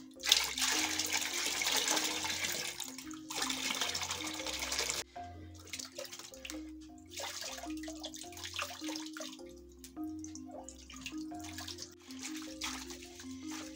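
Water poured off chopped, peeled bananas from one metal cooking pot into another, splashing steadily for about five seconds with a brief pause partway. Scattered light knocks follow as the pots are handled.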